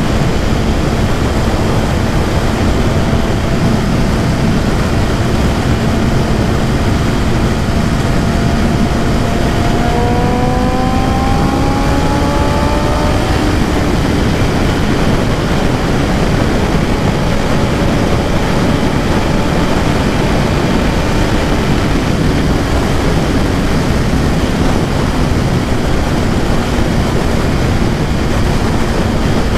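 Heavy wind rush over the microphone of a BMW S1000RR at speed. Its inline-four engine holds a steady note underneath, then rises in pitch for about three seconds midway as it accelerates, before settling back.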